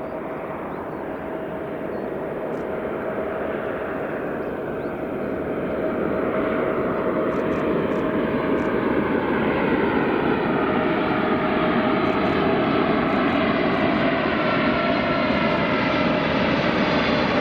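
Boeing 747-8F's four GEnx jet engines on approach to land, a steady roar with a high whine that grows louder as the aircraft comes closer and then holds, with slow swishing sweeps in the sound.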